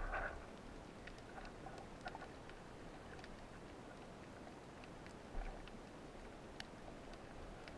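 Faint underwater ambience heard by a submerged camera: a steady hiss with scattered small clicks and ticks, and one low thump about five seconds in.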